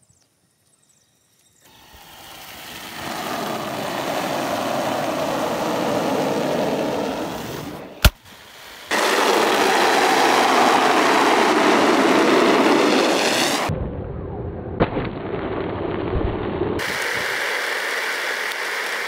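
Cola-and-Mentos foam and gas hissing out of a gas cylinder's valve under pressure, building up over a few seconds, with a single sharp pop about 8 seconds in and a louder steady spraying hiss after it.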